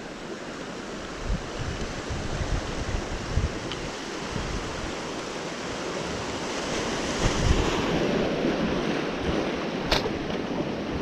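Ocean surf washing and breaking over shoreline rocks, swelling louder about two-thirds of the way through, with wind buffeting the microphone. A single sharp click comes near the end.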